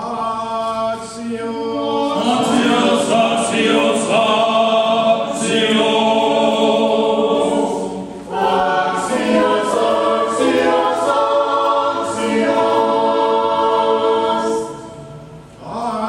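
Church choir singing unaccompanied Orthodox liturgical chant in sustained chords. The phrase breaks off about eight seconds in, and again near the end.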